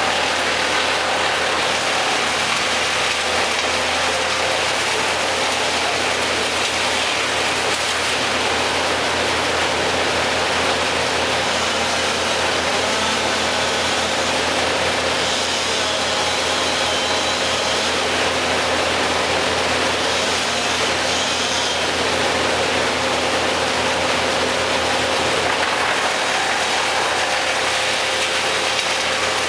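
An engine running steadily under a loud, even hiss, with a faint steady hum and no clear starts or stops.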